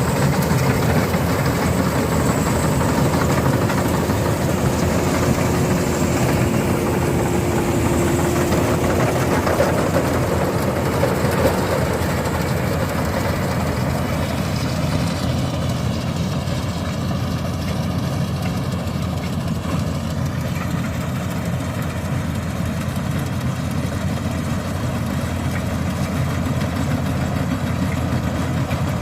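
Combine harvester engine running steadily under load while it cuts lodged (flattened) rice. It runs a little quieter from about halfway through.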